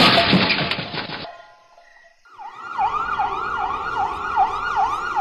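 A loud rushing noise that cuts off about a second in, then an emergency vehicle's siren wailing quickly up and down, a little over two sweeps a second.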